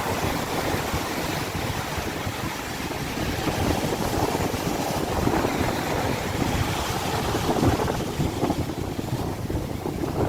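Sea surf washing steadily, with wind buffeting the microphone in a low rumble.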